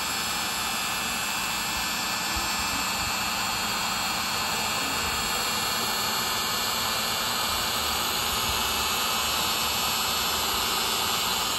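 Bosch Colt palm router on a hobby CNC machine, running steadily at high speed as its fine engraving bit cuts a shallow pass around lettering in a wood board: an even, high-pitched whine over a cutting hiss.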